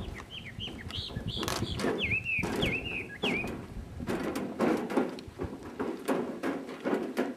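Footsteps on a wooden boardwalk, about two a second, with a bird calling over the first few seconds: a run of short chirps, then several quick down-slurred whistled notes.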